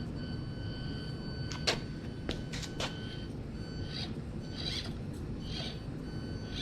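Axial SCX24 Deadbolt micro crawler's small electric motor whining at a steady high pitch, cutting in and out with the throttle. A few sharp knocks of the little truck against the terrain come around two seconds in, over steady low background noise.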